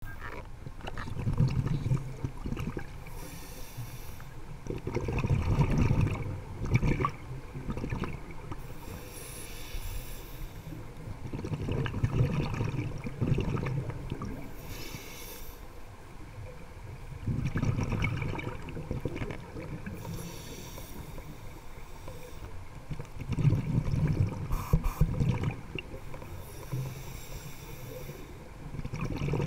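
Scuba diver breathing through a regulator underwater: a hiss on each inhale, then a low burst of exhaled bubbles gurgling away, about five breaths at one every five to six seconds.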